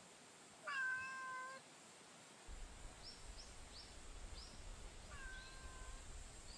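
Street cat meowing twice: a loud, held meow about a second in and a softer one near the end. A few short, high chirps fall between the two meows.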